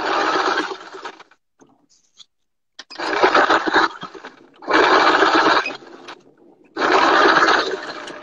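Domestic sewing machine stitching in short runs of about a second, stopping and starting four times, while a topstitching seam is sewn.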